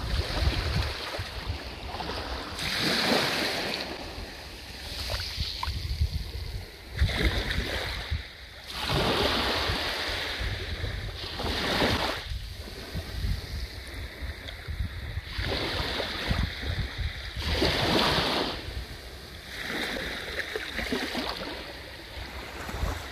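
Small waves breaking and washing up a sandy beach, each wash swelling and fading every few seconds, over a low rumble of wind on the microphone.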